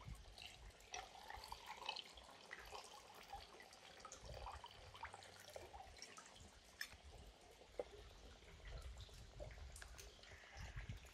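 Faint sound of a drink poured from a cocktail shaker over ice cubes into a tall glass in the first few seconds, then scattered small clicks and crackles from the ice settling in the liquid.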